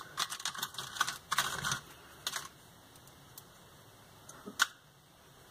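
Small metal screws and washers clicking and rattling against a plastic compartment organiser as they are picked through: a quick run of clicks over the first two and a half seconds, then one sharp click a little before the end.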